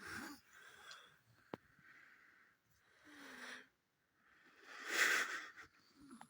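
A person's breathing: several short breathy exhalations close to the microphone, the loudest about five seconds in.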